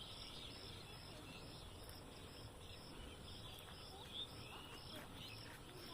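Faint outdoor ambience: an insect chirping steadily about twice a second, with scattered short bird chirps.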